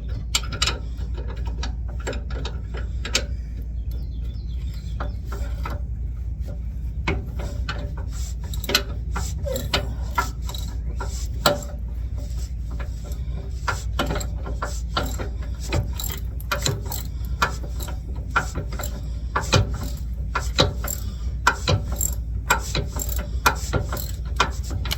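Hand ratchet wrench clicking in irregular spurts as it turns the idler arm mounting bolts, over a steady low hum.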